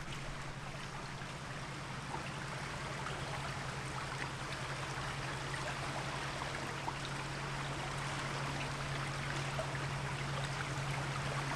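River water running steadily, a constant rushing flow with no breaks, over a steady low hum.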